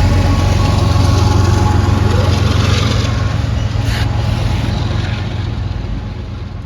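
Diesel freight locomotives running under load as a train climbs a grade, a steady low engine drone that fades out near the end.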